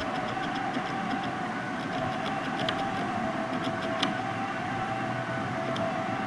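Steady background hum and hiss with a faint steady tone, broken by a few light clicks as the TV's HDMI port is scrubbed with a thinner-soaked cotton swab.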